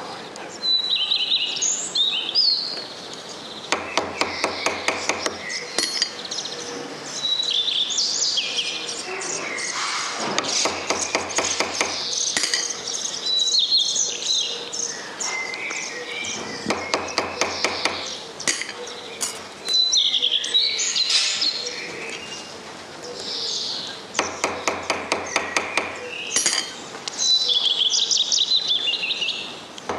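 Quick runs of light hammer taps, about seven a second, coming in short bursts of one to two seconds roughly every few seconds, from a hand-worked job at an accordion workshop bench. Small birds chirp throughout.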